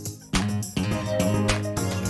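Background music with a steady beat and plucked guitar-like notes.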